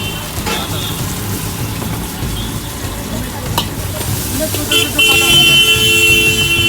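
Street traffic noise with a vehicle horn held as one steady blast for about two and a half seconds, starting near the end; a sharp click sounds a little after halfway.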